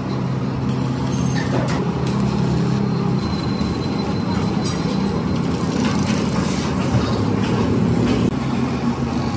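Stick (arc) welding on sheet steel: the arc crackles in spells as the seams of a steel box are tack-welded. Under it runs a steady low hum.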